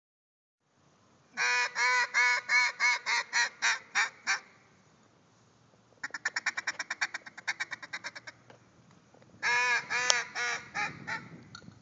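Mallard duck call blown by a duck hunter: a run of about ten loud quacks that get shorter and quieter, then a fast chattering run of short notes, then another shorter run of quacks.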